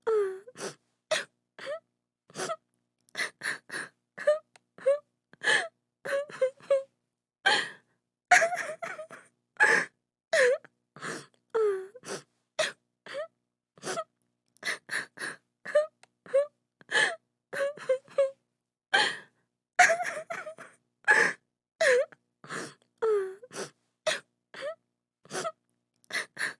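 A woman crying: short sobbing gasps and wavering wails in quick succession, several sliding down in pitch, with brief silent gaps between them.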